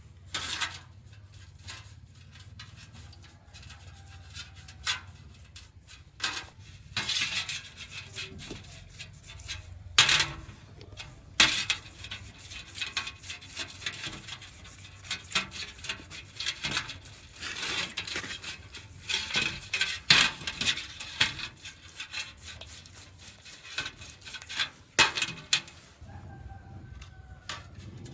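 Irregular clinks, knocks and scraping of hand work on metal car parts, with a steady low hum underneath.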